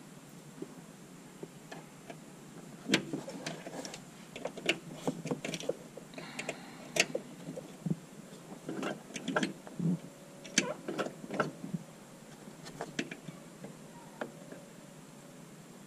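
Irregular clicks and clinks of a hand tool and metal parts being handled at the brake lines, starting about three seconds in and thinning out near the end.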